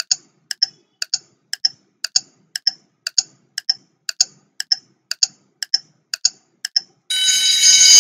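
Countdown clock ticking sound effect, a tick-tock about twice a second, marking the seconds of a quiz timer. About seven seconds in a loud time-up buzzer cuts in as the timer reaches zero.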